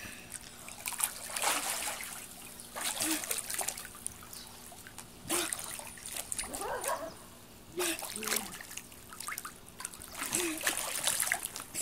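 Water splashing in repeated bursts, a second or two apart, as a child swims strokes and kicks across an above-ground pool.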